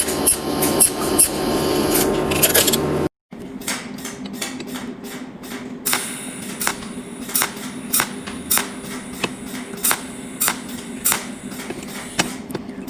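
Workshop tool noise: a quick run of sharp taps and clicks over a steady hum, then, after a break about three seconds in, a steady rhythm of sharp taps, about three every two seconds, over a quieter steady background.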